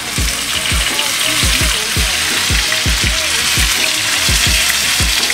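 Seasoned chicken wings sizzling as they fry in hot oil in a skillet, while tongs set them in the pan. A steady bass-drum beat from background music runs underneath.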